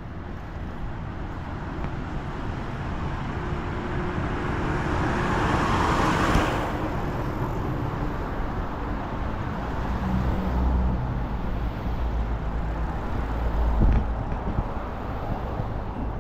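Road traffic on a busy city street. One vehicle passes close, its noise swelling to a peak about six seconds in and then falling away suddenly. Later the low engine note of a heavier vehicle runs for a few seconds.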